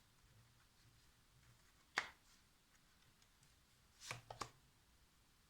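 Tarot cards being turned over and laid down on a table: one sharp tap about two seconds in and a quick cluster of three or four light taps a little after four seconds, with near silence between.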